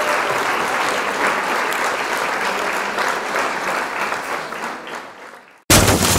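Applause, a dense crackle of many hands clapping, fading away near the end. It is cut off by a sudden loud crash just before the end.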